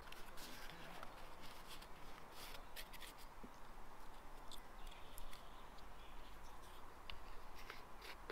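Hands handling a small plastic geocache tube and its rolled paper logbook: scattered light clicks and rustles.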